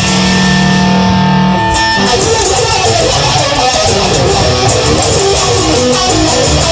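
Instrumental break in a rock song: electric guitar holds a chord for about the first two seconds, then plays on over a steady beat.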